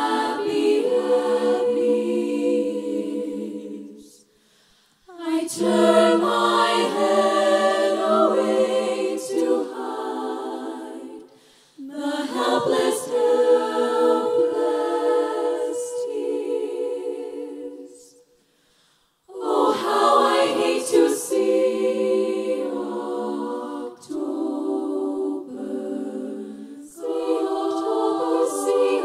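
Women's a cappella vocal ensemble singing sustained close-harmony chords into microphones, in long phrases broken by three short pauses.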